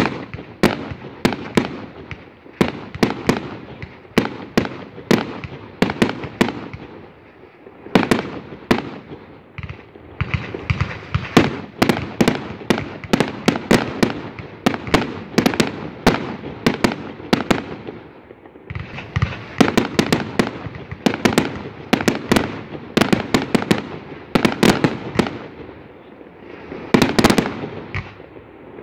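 Aerial fireworks firing in rapid volleys of sharp bangs and crackles, the shots coming several a second. There are brief lulls a little past the middle and again near the end.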